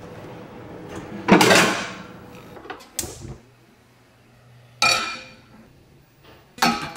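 A kitchen drawer of pots and pans sliding open with a loud clatter, then a metal frying pan clanking down onto the cast-iron grate of a gas stove, ringing briefly, twice.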